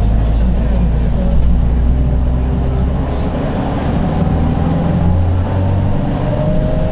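Steady low engine and road rumble heard from inside a minibus's cabin as it drives on wet roads in heavy rain.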